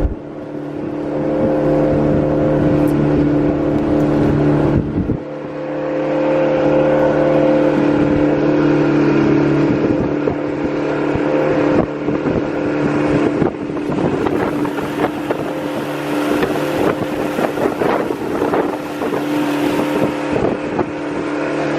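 Motorboat engine running steadily at a constant pitch, with wind buffeting the microphone. From about two-thirds of the way through, a rougher rushing noise with many short knocks joins in over the engine.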